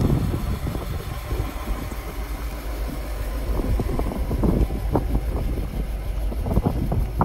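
1940 Ford pickup's 221 ci flathead V8 idling steadily, a low even rumble.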